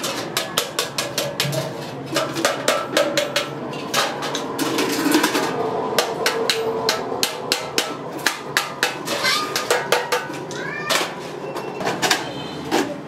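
Stainless-steel stove parts clinking and tapping as they are handled and fitted together, a quick run of sharp metallic clicks and knocks. A short rising squeal sounds about eleven seconds in.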